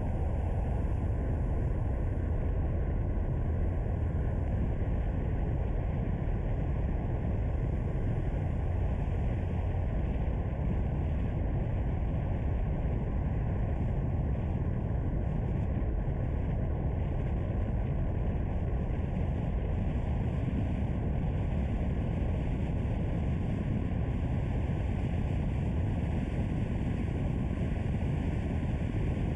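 Steady low rumble of a car driving: engine and tyre-on-road noise, even and unchanging.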